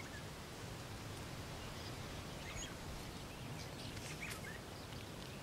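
Steady outdoor background noise with a few faint, short bird chirps scattered through.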